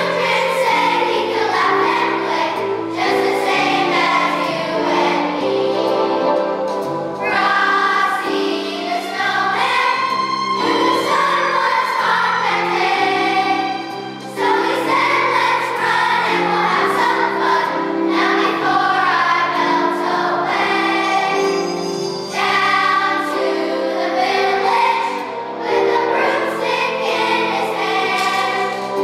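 Elementary-school children's choir singing a Christmas song together over instrumental accompaniment.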